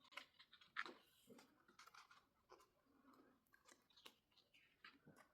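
Faint rustling and soft clicks of a photo book's paper pages being handled and turned, with the sharpest click about a second in.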